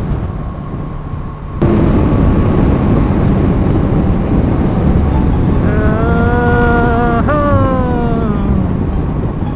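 Kawasaki Versys 650 motorcycle at expressway speed, heavy wind rumble on the helmet-camera microphone that jumps up suddenly about a second and a half in. In the second half the engine's whine rises, jumps sharply and then falls away as the throttle comes off.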